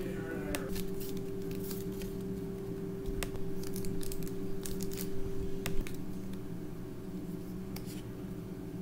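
Foil Pokémon booster-pack wrapper crinkling and being torn open, with scattered sharp crackles. The cards are then handled near the end.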